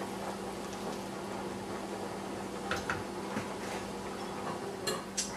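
Pot of vegetable soup simmering on an electric stovetop, a steady bubbling hiss over a low hum, with a few light clicks about three seconds in and again near the end.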